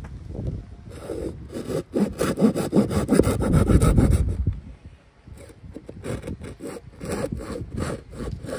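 Wet laundry being wrung out by hand: a rhythmic run of rubbing and squeezing strokes on wet fabric, loudest in the first half, with a short break about five seconds in.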